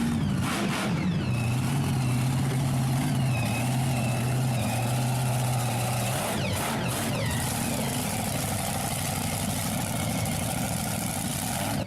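An engine running steadily for several seconds, with a few small rises and falls in pitch.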